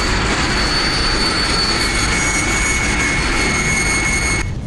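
Jet engines of a sci-fi military dropship flying past, a film sound effect: a steady loud rush with a high whine over it. It cuts off abruptly shortly before the end.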